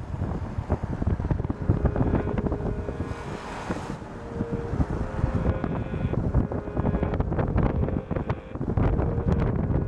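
Car in motion, heard from inside: uneven road and wind rumble with many small knocks and rattles.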